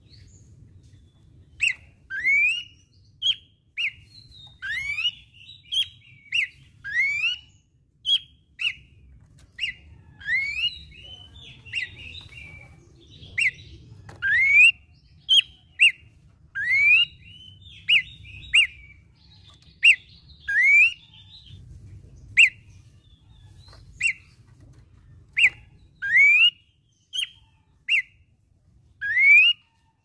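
Pelanduk semak (Horsfield's babbler) singing steadily in loud, short whistled notes about once a second. Many notes slide upward and others are short, clipped single whistles.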